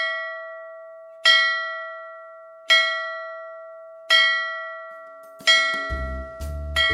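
A single pitched bell chime struck five times, about every second and a half, each strike ringing out and fading. Near the end, music with a low bass line and chords comes in under it.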